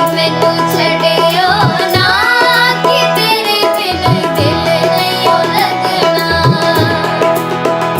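Background music with a melody of sliding, ornamented notes over drum strokes; some of the low strokes bend upward in pitch.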